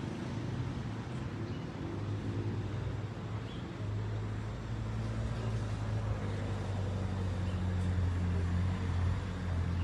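Street traffic with a vehicle engine running close by: a steady low hum over road noise, growing louder about four seconds in and easing off near the end.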